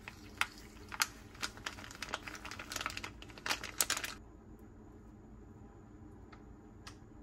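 Irregular crinkling and sharp clicks, as of something being handled, for about four seconds; they stop abruptly, leaving a quiet background with a couple of faint clicks.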